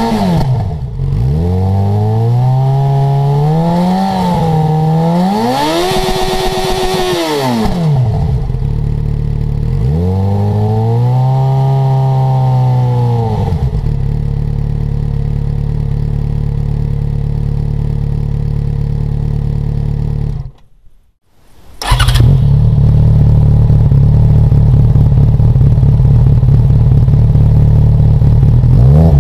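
Yamaha XJ6's 600 cc inline-four through an IXIL SX1 stainless steel exhaust, blipped three times with the revs rising and falling, then idling steadily. After a brief break about two-thirds of the way through, it idles again louder with the exhaust's dB killer removed.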